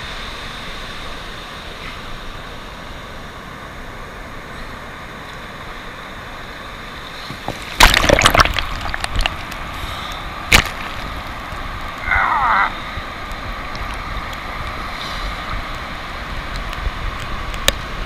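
Steady hiss of surf on a flat sandy beach, with a wave's wash rushing up and sloshing loudly around the low microphone about eight seconds in. Two short falling cries, one about twelve seconds in and one at the very end.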